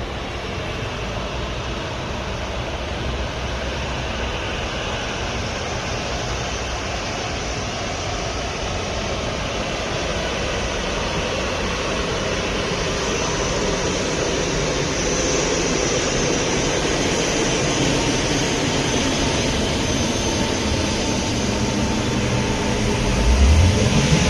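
Jet engine noise from an Airbus A380-842's Rolls-Royce Trent 900 turbofans: a steady roar that grows gradually louder, with a high whine joining about halfway through. Near the end a louder low rumble sweeps upward in pitch.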